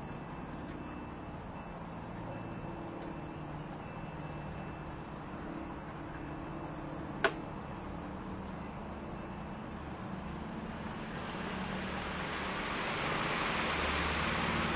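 Low steady background rumble, a single sharp click about seven seconds in, and wind rising through the trees as a growing hiss over the last few seconds.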